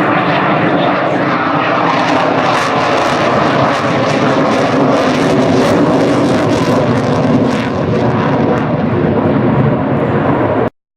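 Eurofighter Typhoon's twin jet engines running loud and steady on a low, slow pass. The sound cuts off abruptly near the end.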